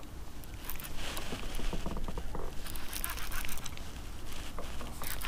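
Baitcasting reel being cranked close to the microphone: a run of rapid, dense clicks with rubbing handling noise, starting about a second in, easing off near four seconds and picking up again at the end.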